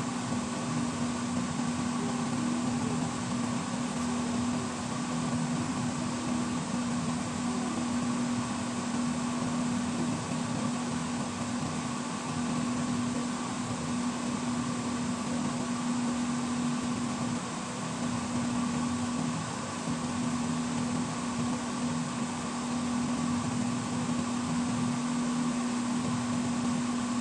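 Steady hum of a running fan motor, with one constant low tone and an even hiss over it.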